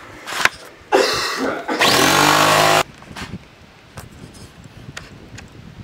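Two-stroke dirt bike engine revving: a rising burst about a second in, then a loud, steady buzz for about a second that cuts off abruptly.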